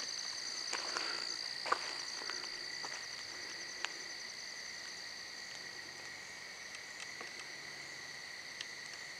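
Steady night chorus of crickets and other insects, a continuous high-pitched trilling, with a couple of faint clicks in the first few seconds.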